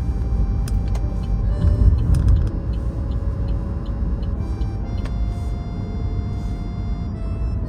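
A steady low rumble, like a vehicle or traffic, with soft background music over it and a few light clicks; the rumble cuts off suddenly at the end.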